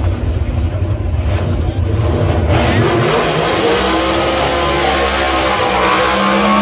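Pro Stock drag-racing V8s rumbling at a low, lumpy idle, then about two and a half seconds in they are revved high for the burnout. The engine note holds loud, climbing slowly in pitch.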